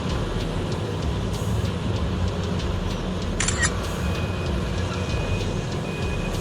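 Heavy mining machinery running with a steady low diesel rumble. About halfway through there is a short metallic clatter, and after it a high beep repeats on and off, like a machine's warning alarm.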